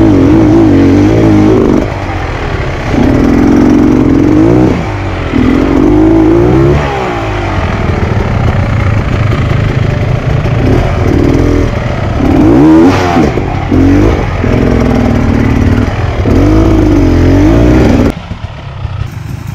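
Off-road dirt bike engine revving in repeated bursts of throttle, its pitch surging up and down every couple of seconds, then falling much quieter near the end.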